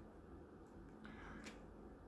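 Near silence: room tone, with a faint click about one and a half seconds in.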